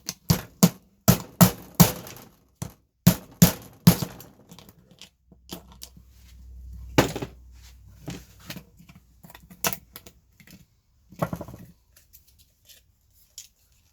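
Sharp clicks and knocks of hand tools and small plastic and metal parts as an electronic control panel is pried apart on a work table: a quick run of them in the first four seconds, then scattered clicks and a short rasp later on.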